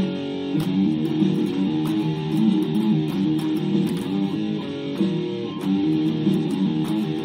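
Electric guitar played with a pick: a steady run of quick, changing notes in a groove-style riff, mostly in the lower middle register.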